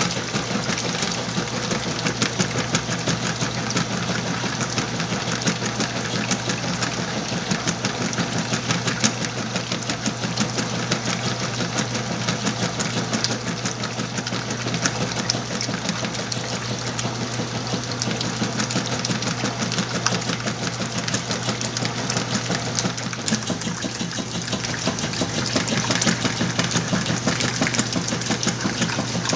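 Whirlpool washing machine running its wash cycle on a large load of clothes: a steady low motor hum under a fast, continuous churning rattle.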